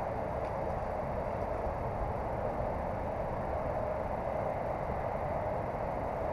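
Steady outdoor background noise, an even hiss with no distinct events in it.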